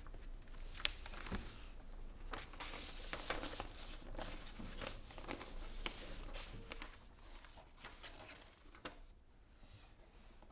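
Sheet music pages being handled and turned: paper rustling and crinkling with scattered small clicks and taps, including a sharp tap about a second in. The rustling dies down over the last couple of seconds.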